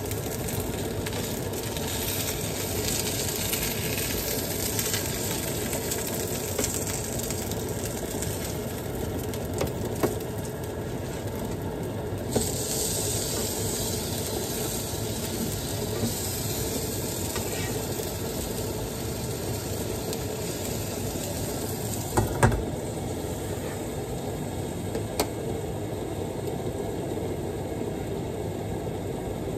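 Breaded fish fillets sizzling in oil in a frying pan, a steady hiss. A few light knocks of utensils on the pan, and a louder clatter about three-quarters of the way through as a glass lid is put on, after which the hiss is more muffled.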